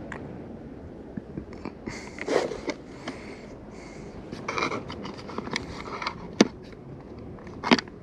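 Fishing tackle being handled while a lure is changed: irregular rustling and small clicks and knocks, with a few sharper clicks a little after six seconds and near the end.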